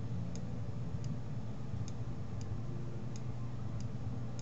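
Computer mouse button clicking about seven times, one click every half-second to second, as points are placed and dragged on a path, over a steady low hum.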